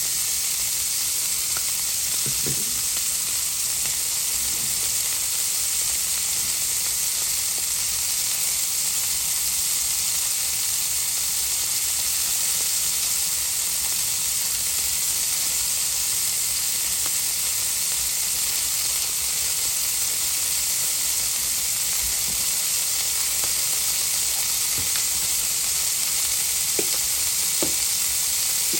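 Filet mignon steaks searing in a hot skillet: a steady sizzle of fat and oil, with a few faint pops near the end.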